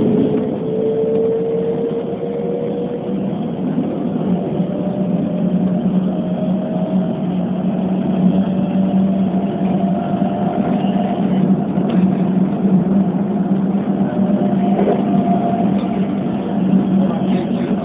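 Keikyu New 1000 series electric train running, heard from inside the car: a motor whine climbs slowly in pitch as the train picks up speed, over a steady running rumble and low hum.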